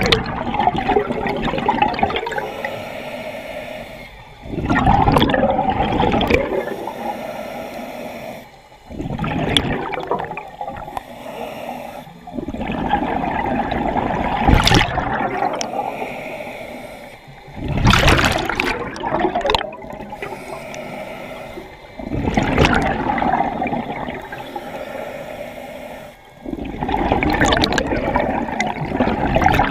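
Scuba diver breathing through a regulator underwater: a loud rush and gurgle of exhaled bubbles about every four seconds, with quieter stretches between.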